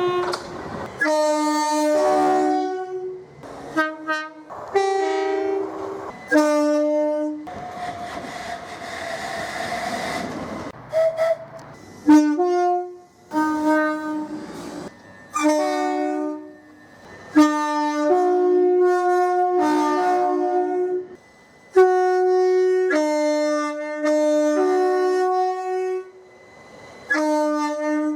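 Train horn sounded in a rhythmic run of short and long two-note blasts, played as a tune. About eight seconds in, a few seconds of rushing train noise take the place of the horn.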